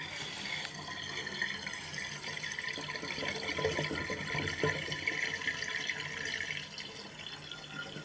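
Spent dye water draining out of a ceramic sink through the plughole, a steady watery rush that thins out near the end.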